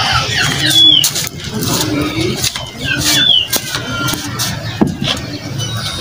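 Outdoor rooftop ambience: birds chirping and short, repeated low cooing calls over a steady low hum of traffic, with a few scattered clicks.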